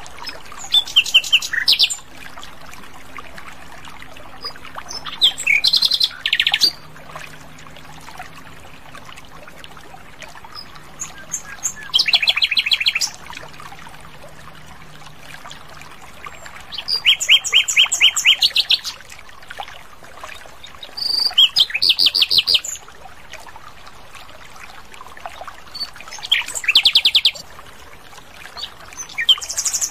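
Common nightingale singing: about seven loud phrases of rapid, fast-repeated high notes, each one to two seconds long, separated by pauses of a few seconds, over a steady background hiss.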